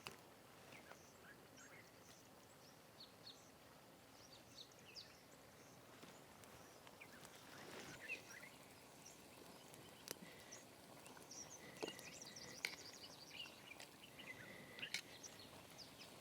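Faint forest ambience with scattered short bird chirps. A steady high note comes in about two-thirds of the way through, and a few sharp clicks sound now and then.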